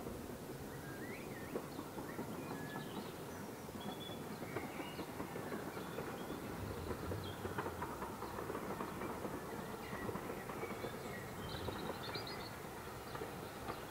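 A distant steam train working along the line, heard faintly as a steady rumble with irregular knocks. Birds chirp over it.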